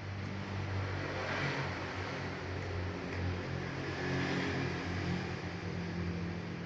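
A vehicle engine running, a low hum, with a hiss that swells twice, about a second and a half in and again about four seconds in.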